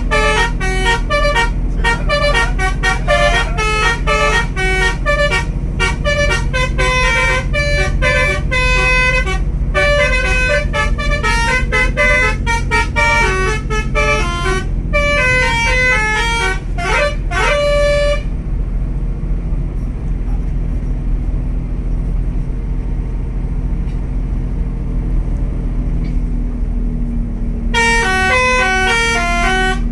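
Basuri telolet bus horn playing quick, stepping multi-note melodies for about eighteen seconds, then stopping; it plays again near the end. The bus engine hums steadily underneath throughout.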